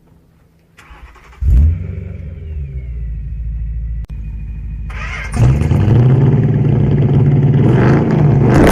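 A car engine catches suddenly about a second and a half in and runs steadily. From about five and a half seconds in it runs louder at a held, higher speed.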